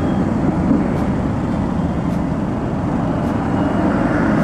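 City road traffic heard from a two-wheeler being ridden through it: a steady mix of the bike's running engine, tyre and road noise, and surrounding cars.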